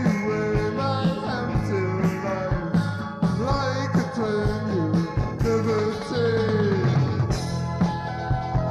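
Rock band playing live: a drum kit keeps a steady beat over bass and keyboards, while a lead melody slides between notes above them.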